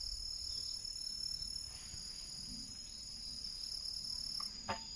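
Insects singing steadily in high, continuous tones; the highest tone stops near the end. A small click comes just before the end.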